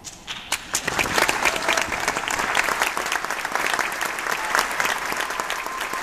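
Audience applause in a theatre: clapping breaks out right at the start and swells within about a second to dense, steady applause.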